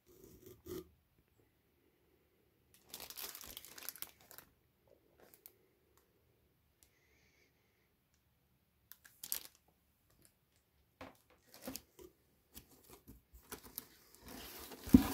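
Plastic bags around CGC graded-comic slabs and the paper packing in a cardboard box crinkling as they are handled. The crinkling comes in several short bursts with quiet gaps between them and is loudest near the end.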